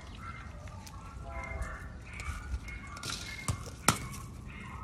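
Miniature Schnauzer puppies whining and yelping in short, high-pitched cries, with a sharp knock late on.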